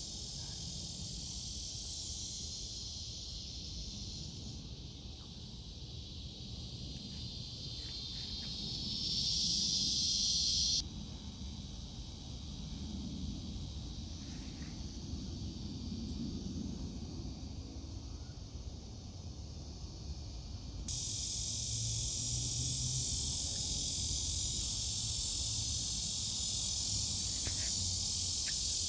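Evening insect chorus: a steady, shrill high hiss of many insects, growing louder just before it changes abruptly about eleven seconds in and again about twenty-one seconds in.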